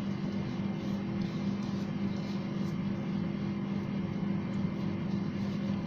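Steady low hum over an even background hiss, unchanging throughout: room tone with a constant machine or electrical hum.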